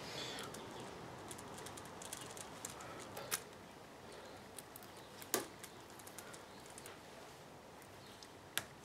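Faint handling noise of gloved hands working a braided AN6 hose end onto a PTFE fuel hose: soft rustling and light ticks, with sharp clicks about three seconds in, about five seconds in, and near the end.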